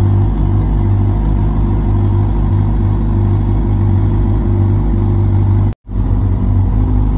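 Suzuki GSX-R 600's inline-four engine idling steadily. The sound cuts out for a split second about six seconds in.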